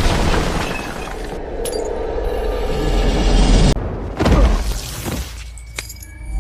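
Dubbed fantasy-battle sound effects: a loud, drawn-out shattering crash with a deep rumble, cut off abruptly near four seconds in, then a short whoosh and low impact.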